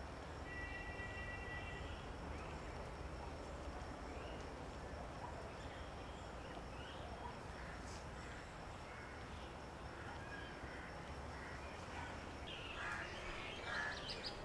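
Outdoor ambience with a steady low hum and birds calling in the background, with a short flurry of chirps near the end.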